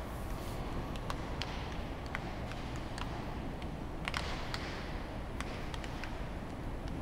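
Scattered sharp cracks and pops from baseball practice on a stadium field, with balls being hit and caught, over a steady low rumble of open-air ambience. The loudest knocks come about a second in and again about four seconds in.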